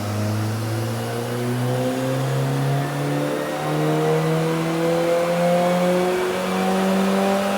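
Suzuki Jimny's 1.5-litre four-cylinder with a bolt-on turbo, pulling at full throttle on a chassis dyno: the engine note climbs steadily in pitch as the revs build through a power run, levelling off near the end.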